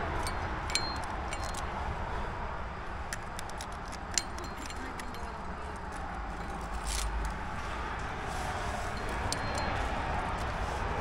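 Climbing gear clinking: aluminium carabiners and protection on the climber's rack knock together in scattered light metallic clinks, in a few short clusters over a steady rushing background.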